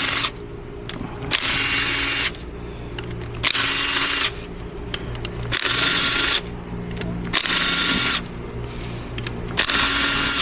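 A power ratchet spinning out the 10 mm front-cover bolts of an 8L90 automatic transmission in short runs of just under a second, about one every two seconds, with a steady whine in each run.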